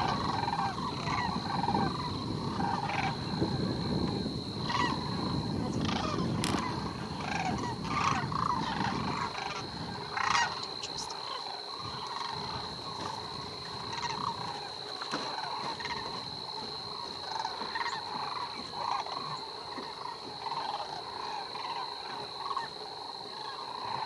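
Sandhill cranes calling, their bugling calls repeated and overlapping all through. A steady high-pitched tone runs underneath, and a low rumble fills roughly the first half.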